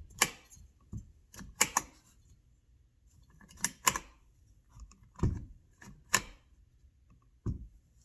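Hard clicks and knocks, about half a dozen spaced through a few seconds, of tools and metal parts being handled while a chainsaw is reassembled by hand.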